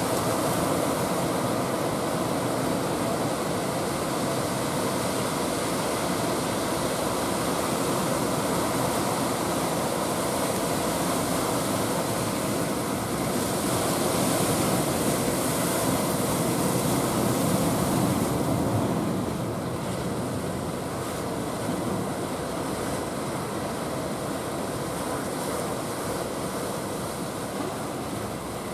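Rough sea surf and a wooden fishing boat's engine running steadily as it crosses breaking waves. It grows louder for a few seconds in the middle as the bow crashes through a wave and throws spray, then eases.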